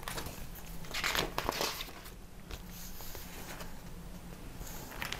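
Pages of a glossy paper brochure rustling and crinkling as they are turned and folded back, loudest about a second in, with fainter rustles later.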